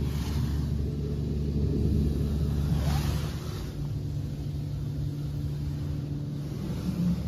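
Istobal M'Start rollover car wash running over a foam-covered car, heard from inside the cabin: a steady low machine hum under the swish of its rotating brushes and water on the glass, with a louder swish about three seconds in.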